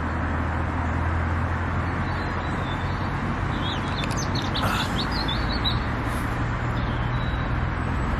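Steady road-traffic rumble with a low hum, with a small bird chirping a few times in the middle.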